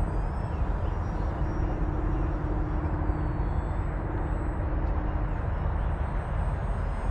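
Steady low rumble of wind on the microphone, over the faint high whine of a small electric RC plane's motor and propeller flying overhead.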